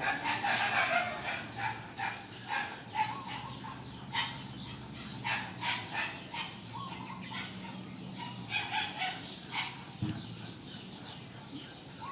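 A string of short animal calls coming in quick clusters, busiest in the first couple of seconds and again near the end.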